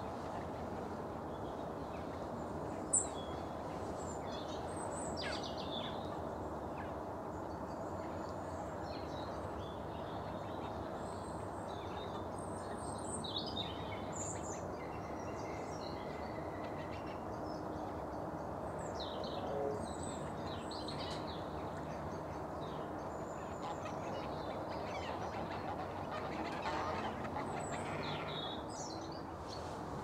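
Wild birds calling around open water: scattered short, high chirps and calls over a steady low background hum, with one louder, sharper chirp about three seconds in and a few lower calls.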